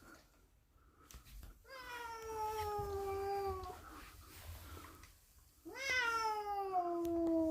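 A domestic cat giving two long, drawn-out meows, each about two seconds and falling in pitch; the second, near the end, is the louder.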